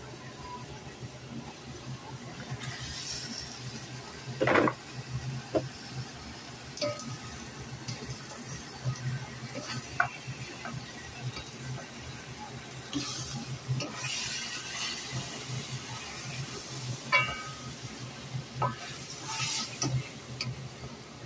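Chicken and cubed radish sizzling in a wok while a wooden spatula stirs and scrapes them, knocking against the pan now and then; the loudest knock comes about four and a half seconds in.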